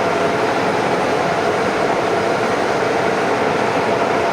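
Vertical turning lathe running steadily: a constant machine hum with a few steady tones over a noisy hiss.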